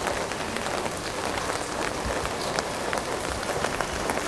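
Steady rain falling, with many individual drops striking close by as short sharp ticks.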